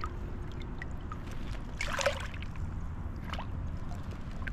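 Water splashing as a released largemouth bass kicks free of the hand and swims off: one louder splash about two seconds in and a smaller one a little later, with small drips and trickles over a steady low rumble.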